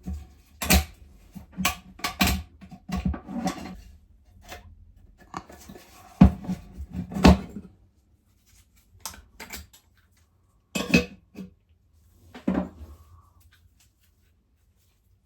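Metal parts of a vintage lantern being handled, a run of sharp clinks and knocks with short pauses between them, thinning out near the end.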